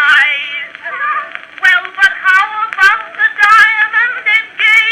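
Woman singing a popular song from an early acoustic recording played from an Edison Blue Amberol cylinder, with a wavering vibrato and a tinny sound that has no highs. A few sharp clicks of surface noise come through.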